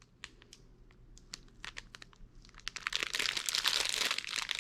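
Plastic packaging crinkling as it is handled: a few faint scattered crackles at first, then a dense, louder run of crinkling for the last two seconds.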